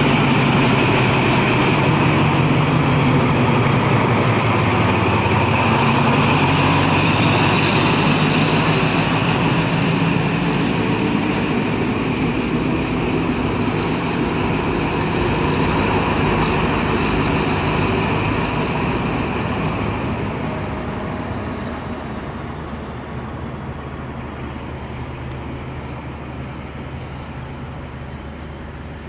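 KTMB Class 24 diesel locomotive running as it moves away, a steady engine drone with a high whine over it. It fades over the last third.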